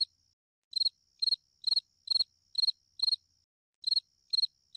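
Cricket-chirp sound effect: short high chirps repeating about twice a second, with a brief pause a little past the middle. This is the stock comic 'awkward silence' cue.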